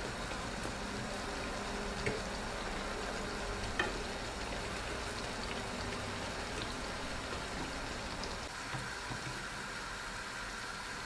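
Lokma dough rings deep-frying in hot oil in a pan: a steady sizzle and bubbling. Two brief clicks, about two and four seconds in, as the metal fork touches the pan while turning the pieces.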